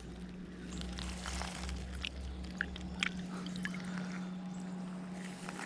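Creek water running, with scattered small drips and ticks.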